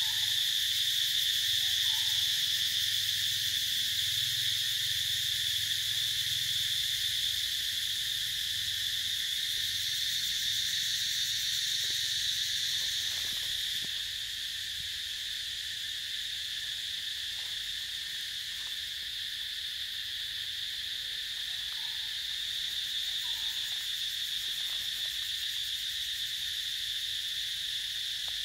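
Steady, high-pitched drone of insects in forest undergrowth, unbroken throughout, easing slightly about halfway through.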